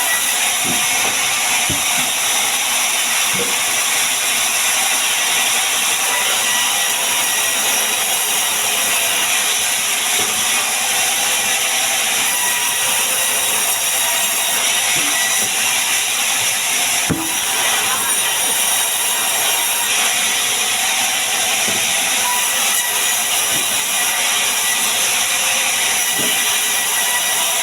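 A power tool working wood: a steady, loud hissing noise that runs unbroken, with a few light knocks, the clearest about 17 seconds in.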